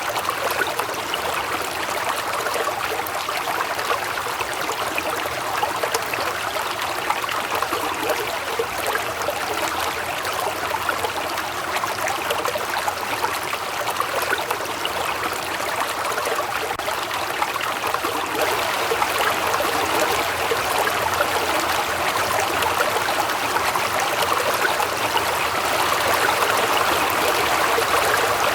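Waterfall: water falling and splashing in a steady, continuous rush, getting slightly louder over the second half.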